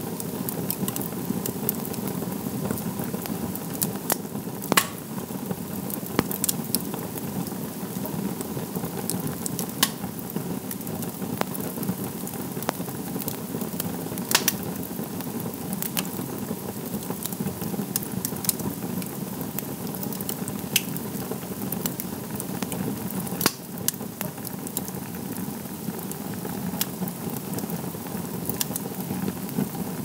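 Wood campfire burning: a steady low rush of flame under frequent small crackles, with a sharp louder pop every few seconds.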